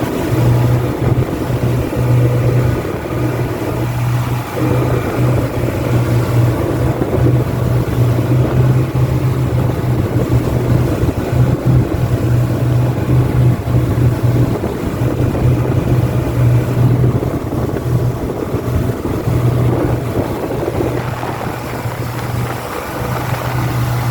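An engine running steadily at constant speed: a strong, unchanging low drone with a rushing noise over it.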